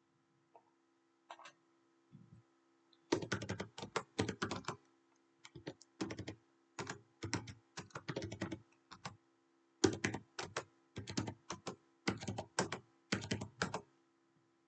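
Computer keyboard typing, numbers being keyed in as quick clusters of keystrokes that start about three seconds in and run in short bursts with brief gaps.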